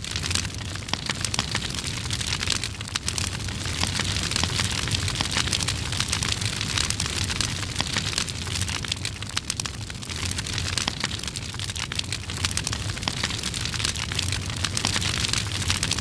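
Large wildfire burning: a steady rushing noise thick with many small crackles and pops.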